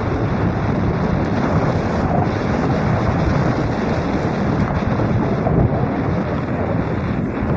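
Wind buffeting a helmet-mounted camera's microphone as a mountain bike rides down a dirt trail: a steady, loud low rumble with a few faint clicks.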